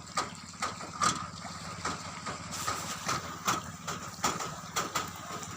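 An engine idling steadily, with sharp knocks repeating about twice a second over it.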